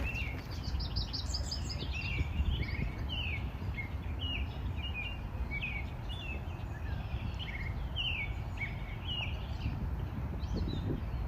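Songbirds chirping: a run of short, repeated downward-slurred chirps, with a quick high trill about a second in, over a steady low rumble of outdoor background noise.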